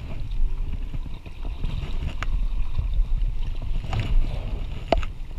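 Canoe paddling: a wooden paddle stroking through river water, under a heavy low rumble of wind on the microphone. Three short sharp knocks come in the second half.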